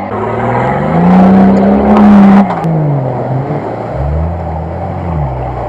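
Off-road 4x4 SUV engine revving hard under load in a water-filled mud pit. The pitch rises about a second in, holds high at its loudest, then falls away; it rises again near the end and drops back.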